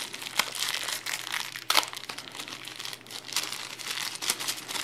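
Plastic packaging crinkling and crackling as it is unwrapped from a coiled micro USB power cord, with one sharper crackle just under two seconds in.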